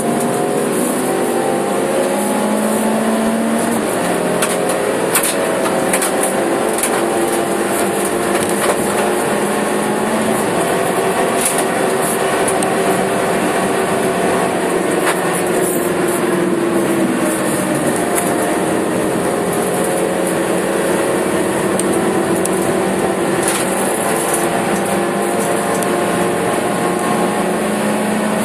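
Suzuki Swift Sport's four-cylinder engine running at speed, heard inside the stripped, roll-caged cabin over steady wind and road hiss. The engine note drifts up and down, dips in pitch about two-thirds of the way through, then climbs again, with a few sharp knocks from the car along the way.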